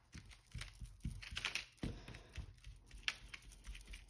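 Paper rustling with irregular soft taps and dabs as colour is dabbed onto a sheet by hand, several sharper taps among them.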